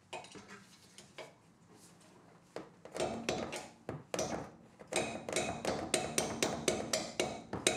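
Hand tools working metal on a car's rear suspension: a rapid run of metallic clicks and clinks that starts about three seconds in and goes on at about four a second.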